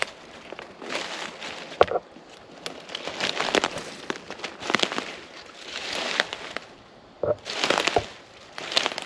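Footsteps crunching through dry leaves on the woodland floor, about one step a second, with a sharp snap about two seconds in.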